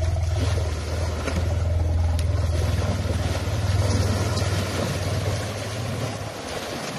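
Water splashing and churning as elephants wade through a shallow muddy river, over a steady low hum that fades near the end.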